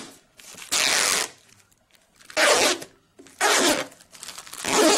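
Blue protective film being peeled off an acrylic picture-frame panel: four ripping pulls, each about half a second, roughly a second apart.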